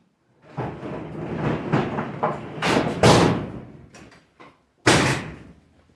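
A door being worked: about four seconds of rattling and scraping, then one hard slam about five seconds in.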